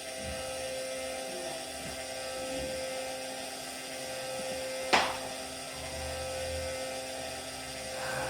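A steady, even hum with one sharp click about five seconds in.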